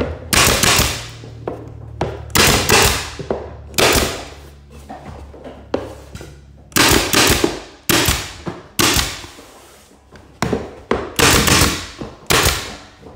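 Porter-Cable pneumatic nailer firing about nine shots at uneven spacing, each a sharp crack with a short hiss after it, driving nails through crown molding at a miter joint.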